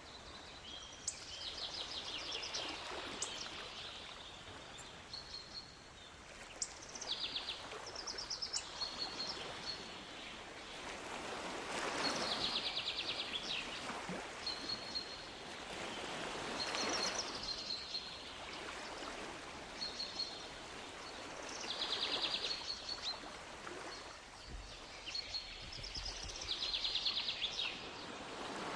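Waves washing in roughly every five seconds, each swelling and fading, with small birds chirping and giving rapid trills over them throughout.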